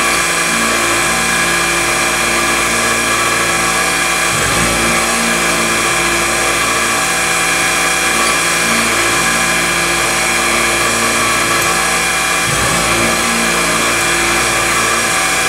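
Syil X3 CNC mill cutting an aluminium part, its spindle running steadily with constant machine whines over the cutting noise.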